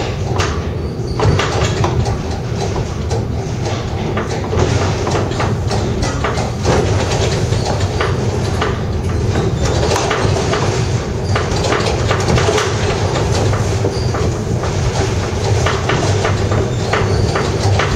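Pic du Jer funicular car running along its rails: a steady rumble with a low hum and frequent irregular clicks and rattles from the wheels on the track.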